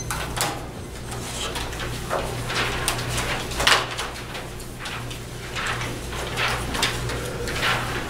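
Sheets of paper rustling and shuffling as they are handled, in irregular short rustles, over a low steady room hum.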